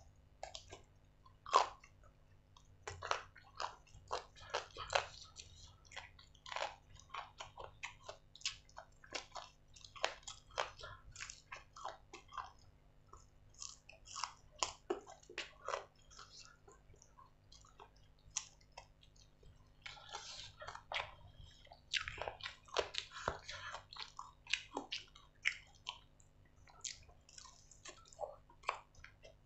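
Close-miked mouth sounds of a man eating grilled chicken: chewing, wet lip smacks and finger-licking clicks in an irregular patter, busiest about two-thirds of the way through.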